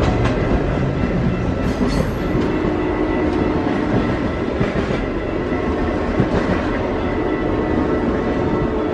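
Passenger cars of the Canadian Pacific Holiday Train rolling past at speed: a steady rumble and rattle of steel wheels on the rails.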